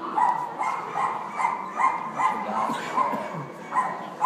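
A small dog yapping in a steady run of short, high barks, about three a second, with a brief pause near the end.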